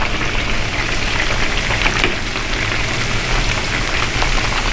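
Battered chicken tenders deep-frying in hot oil: a steady, dense crackling sizzle.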